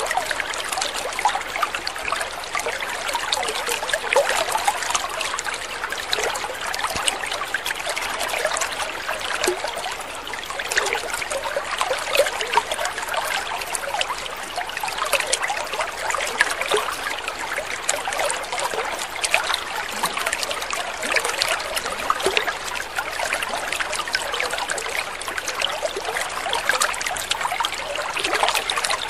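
Water trickling steadily, with a constant patter of small splashes and droplets.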